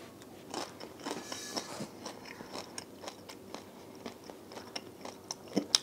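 A man faintly chewing and biting a piece of chicken thigh: soft, scattered crunchy clicks, with one sharper click near the end.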